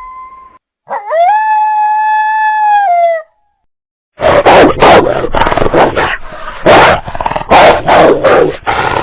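Canine-like creature sound effects for BIONICLE Rahi beasts. A howl swoops up, holds for about two seconds and drops at the end. After a short silence comes a run of loud, rough growling bursts.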